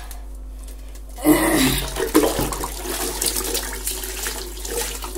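Water splashing and pouring onto a concrete bathroom floor as feet are washed, starting suddenly about a second in and running on steadily.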